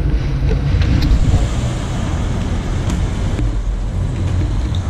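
Wind buffeting the microphone of a camera riding along on a moving bicycle, a steady low rumble, mixed with road and traffic noise.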